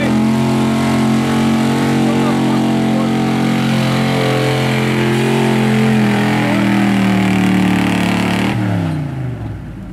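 Square-body Chevrolet pickup's engine running hard at high, steady revs under full load as it drags a truck-pull sled. Near the end the revs fall away sharply and the engine goes quieter as the pull ends.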